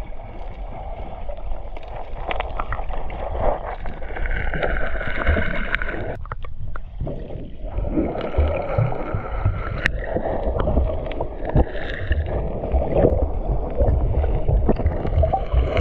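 River water rushing and splashing steadily, with a low rumble and scattered sharp splashes throughout.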